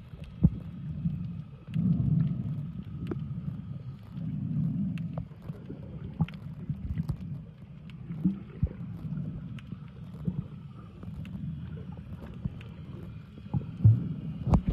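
Underwater sound picked up by a camera held below the surface: a muffled low rumble that swells and fades every two seconds or so, with scattered sharp clicks and a faint steady whine.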